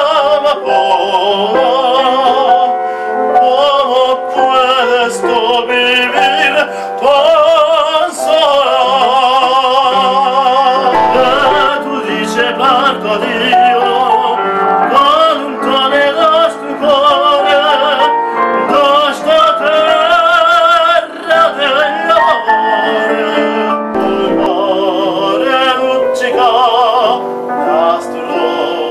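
Male classical singer singing in operatic style, holding long notes with a strong vibrato, to piano accompaniment.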